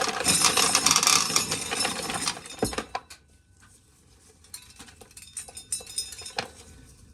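Dry corn kernels clattering and rattling as corn is shelled by hand into a bucket, stopping sharply near three seconds in; after that only a few scattered light clicks and taps.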